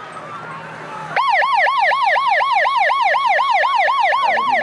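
A yelp-type siren: a loud tone sweeping quickly up and down about four times a second, starting suddenly about a second in and cutting off abruptly.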